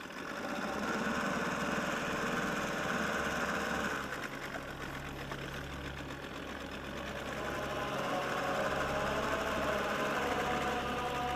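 A small motor running steadily with a low hum, its tone shifting slightly a few times.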